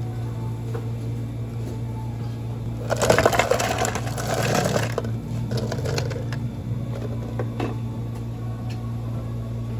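Ice cubes tipped from a scoop clatter into a tall plastic cup for about two seconds, over a steady low hum.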